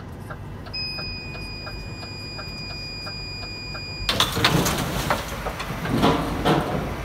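Inside a DAF truck cab, a dashboard indicator ticking about twice a second, with a steady high beep joining in about a second in. From about four seconds in come louder clanks and rattles as a truck-mounted loader crane hoists an underground waste container.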